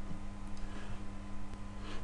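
Room tone between narration: a steady low electrical hum and faint hiss from the recording, with a couple of faint clicks.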